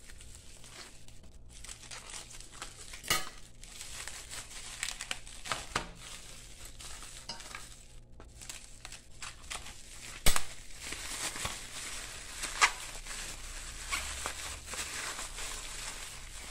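Clear plastic packaging crinkling and rustling as it is handled and pulled off a boxed disc brake rotor, with a few sharp clicks, the loudest about ten seconds in.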